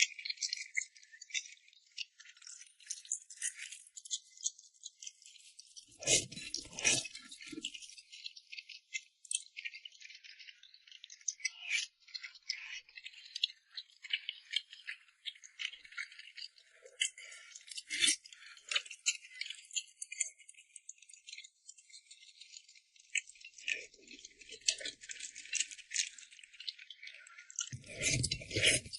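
Close-miked eating sounds of rice noodles in chili oil being chewed: a dense, continuous run of small wet clicks and smacks, with a couple of fuller, lower mouthfuls, one about six seconds in and one near the end.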